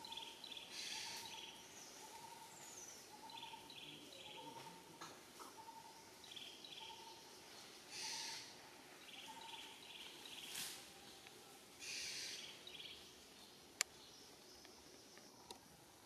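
Faint forest ambience with birds calling: one bird repeats a steady single note about every two-thirds of a second, while higher chirps come in quick runs. Short hissy rushes come and go, and a single sharp click sounds near the end.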